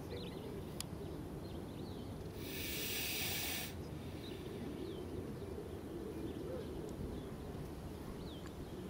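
A puff adder hissing once, a long even breath-like hiss a little over a second long starting about two and a half seconds in, over a steady low rumble and a few faint high chirps.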